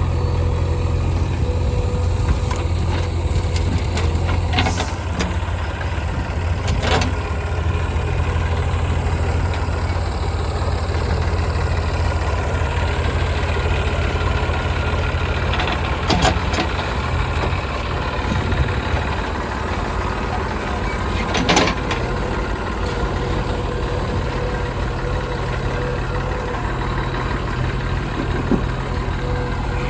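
Heavy diesel engine running at a steady speed, with a few sharp knocks now and then.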